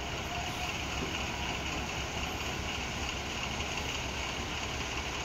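Loaded lorry's diesel engine running steadily at low revs as the truck creeps slowly through a tight turn.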